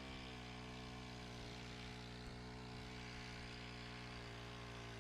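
A small engine idling steadily: a low, even engine hum that holds its pitch.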